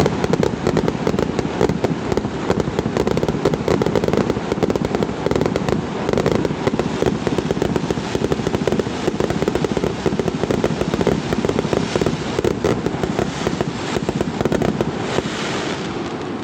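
Extra-large starmine fireworks barrage: shells bursting in rapid succession, a dense, continuous run of bangs with no pause.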